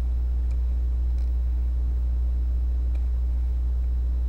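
Steady low hum with a few faint, short strokes of a felt-tip marker writing on paper.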